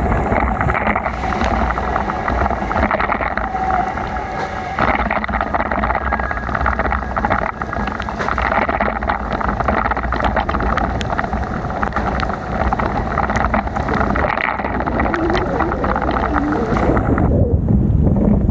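Wind buffeting the microphone on a moving bicycle, over a steady rush of tyre and road noise in the rain, with fine crackling throughout; the upper noise drops away suddenly near the end.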